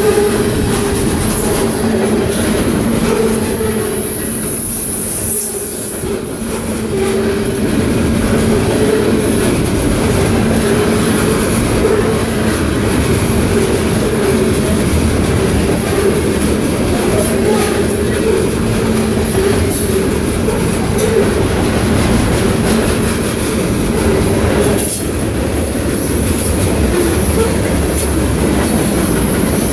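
Freight cars of a long train rolling past, a continuous rumble and rattle of steel wheels on rail, with a high-pitched wheel squeal above it throughout.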